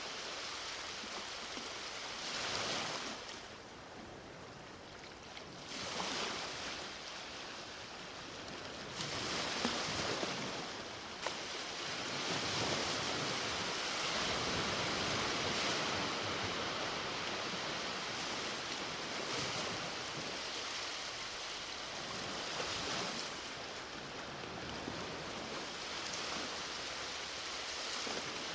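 Ocean waves breaking and washing onto a beach, a constant surf hiss that swells and ebbs as each wave comes in.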